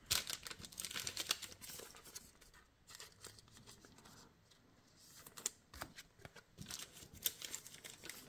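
Faint crinkling of a foil card-pack wrapper and light clicks and slides of glossy trading cards being handled and flipped through. The sounds are scattered, busiest in the first two seconds and again over the last three, with a near-silent stretch in between.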